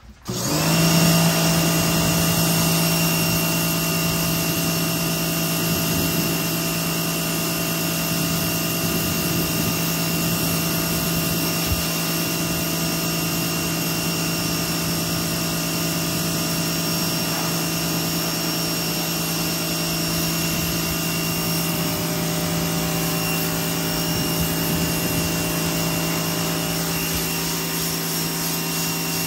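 Pressure washer cutting in suddenly and then running steadily: a motor hum under the hiss of the spray hitting the dog's coat and the wet concrete.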